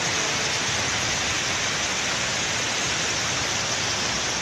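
Torrential rain and floodwater pouring down in a steady, unbroken hiss.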